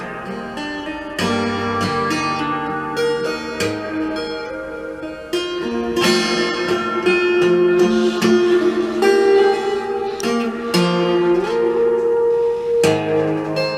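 Solo cutaway acoustic guitar played fingerstyle: plucked melody notes ring over sustained bass notes, with several strongly struck chords along the way.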